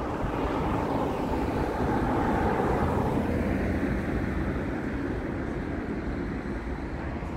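A motor vehicle passing on the street: its noise swells over the first couple of seconds and then slowly fades.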